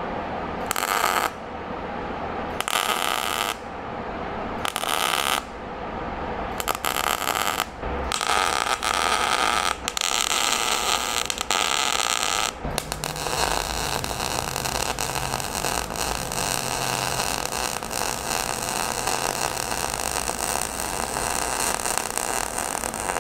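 Electric welder arc crackling on sheet-metal body panel: several short tack-weld bursts, then a long continuous weld bead from about halfway through.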